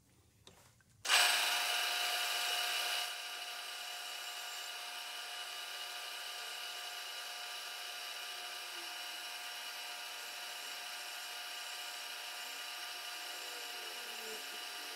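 Milling machine spindle starts up about a second in and runs with a steady whine, an end mill taking a light climb cut along the edge of a small casting.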